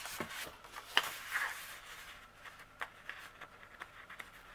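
Light handling sounds as a paper backing sheet is laid onto a polystyrene frame: soft rustling and scattered small taps and clicks, the sharpest about a second in.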